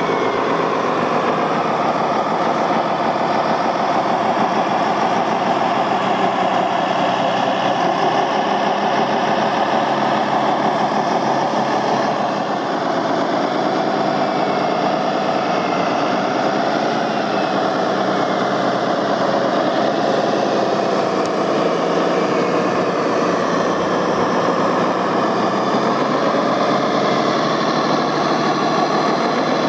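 Radio-controlled model construction vehicles running, a steady mix of motor noise with whines that rise and fall in pitch as the machines speed up and slow down.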